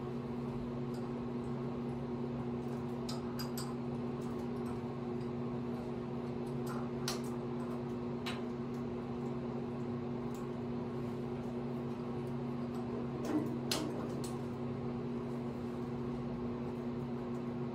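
Steady low electrical hum of a machine running in the workshop, with a few short, light clicks of metal being handled on the engine.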